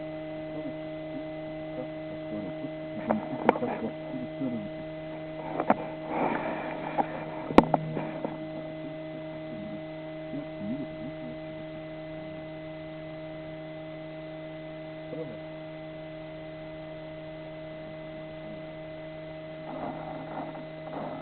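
A steady electrical hum made of several fixed tones, with scattered short rustles and one sharp click about seven and a half seconds in.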